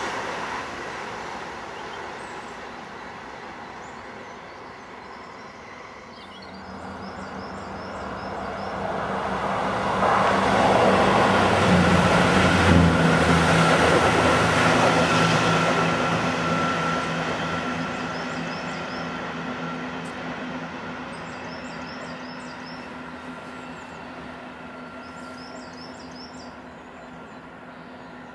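A train passes beneath and runs away down the line. The noise builds from about a quarter of the way in to its loudest near the middle and then fades slowly, with a steady low hum and a faint high whine under the running noise. Birds chirp faintly near the end.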